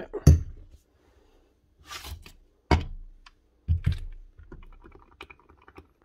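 Metal parts of a Rotabroach magnetic drill being handled and set down during teardown: a handful of sharp knocks over the first four seconds, then lighter clicks and ticks.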